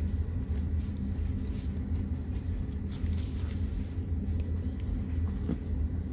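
A steady low rumble, with light rustles and clicks over it.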